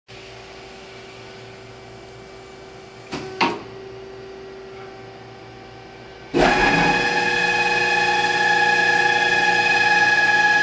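Automatic facing and centre-drilling machine: a steady hum, two short knocks a little after three seconds as the clamps close down on the steel bar, then about six seconds in the cutting heads start all at once into a much louder steady machining whine with many tones as the bar ends are faced and centre-drilled.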